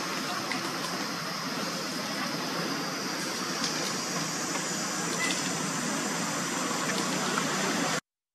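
Steady outdoor background hiss with no clear monkey calls, a couple of faint short chirps in it; it cuts off suddenly about eight seconds in.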